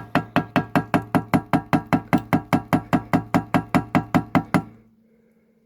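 Rapid, even tapping, about five knocks a second, that stops near the end: the clogged chainsaw air filter being knocked against a hard surface to shake out fine sawdust.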